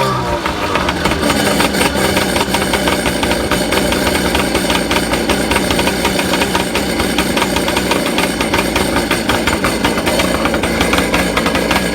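Kawasaki 550SX jet ski's two-stroke twin engine running steadily just after catching, on its first run after 21 years in storage, fed a rich 35:1 oil mix.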